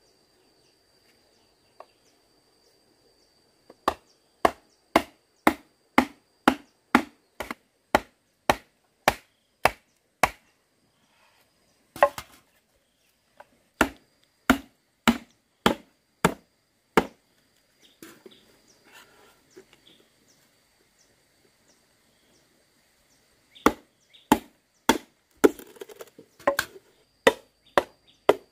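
Repeated chopping with a blade: sharp strikes about two a second, in three runs separated by short pauses.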